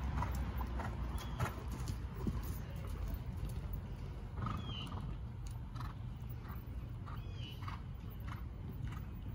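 A ridden horse's hooves striking the sand arena footing in an uneven run of thuds, over a steady low rumble.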